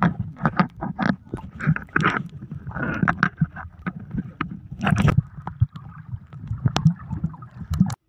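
Swimming-pool water splashing and gurgling around a camera held partly underwater, in irregular splashes with a muffled low rumble.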